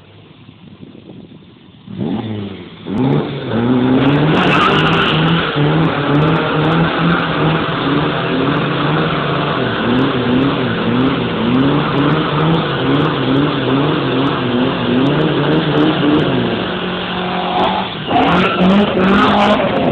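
Ford Capri doing a burnout: the engine starts about two seconds in and is held at high revs that rise and fall again and again, with the rear tyres spinning on the tarmac. The revs ease off briefly, then come back loud near the end.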